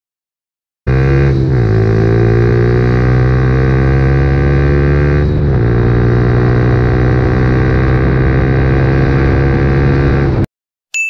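Suzuki Gixxer 150's 154 cc single-cylinder engine under full-throttle acceleration, heard from on the bike. Its pitch climbs steadily, broken by two quick upshifts, about a second and a half in and about five seconds in. It cuts off suddenly near the end and is followed by a short bright ding.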